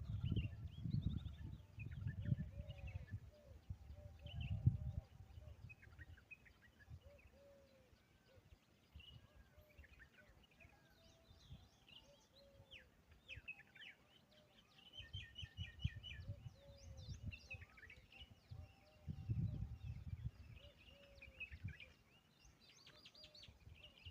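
Several birds chirping and calling over one another in short, quick notes, with a lower call that repeats every second or so, and bursts of low rumble near the start and again past the middle.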